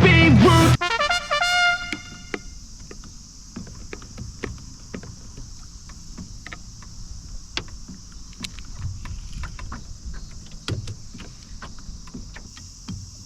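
Background music ends with a held note fading out over about a second, followed by quiet ambience: a steady high hiss with scattered light clicks and taps.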